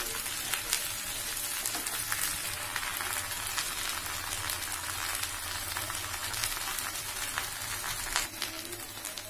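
Chopped okra and onions sizzling in hot mustard oil in a kadhai: a steady frying hiss with scattered small crackles and pops.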